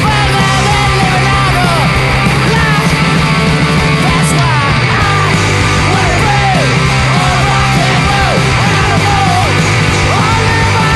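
Loud punk rock song: distorted electric guitars, bass and drums, with a high line bending up and down in pitch over them.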